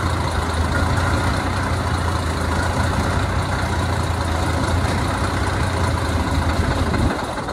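1955 John Fowler diesel locomotive's engine running with a steady low drone, which drops away suddenly about seven seconds in.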